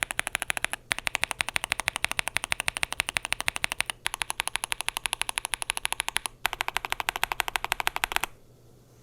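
Typing on a Yunzii AL65 mechanical keyboard with Gateron Zero linear switches, PBT double-shot keycaps and an aluminium case: a fast, even run of keystrokes, about ten a second. The run breaks briefly three times and stops shortly before the end.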